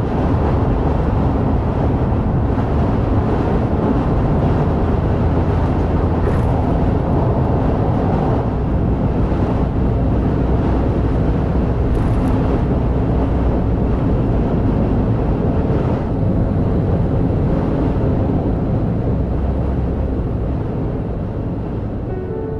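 Steady low rumble of a car driving, mostly road and engine noise, easing off slightly near the end.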